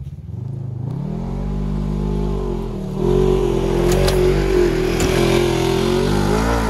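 Polaris RZR side-by-side's engine revving up from idle, pitch climbing about a second in and rising again near the three-second mark, then holding at high revs as it drives through deep snow.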